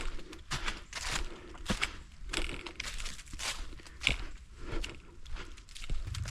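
Footsteps of a hiker walking on a trail at a steady pace, about two steps a second.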